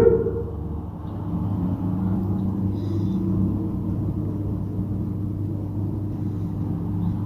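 A steady low hum with a faint rumble, with no distinct event.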